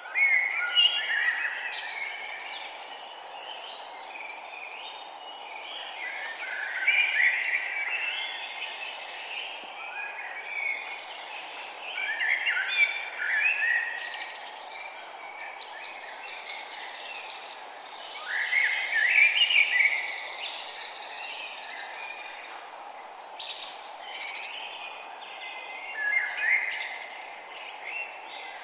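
Birds singing: a phrase of quick, jumbled chirping notes comes back about every six seconds, with fainter calls in between, over a steady background hiss.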